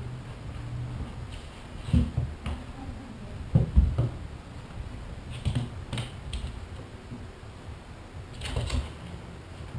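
Two cats scuffling on a wooden floor: irregular thumps and clicking taps of paws and bodies hitting the boards, the loudest cluster about four seconds in and another near the end.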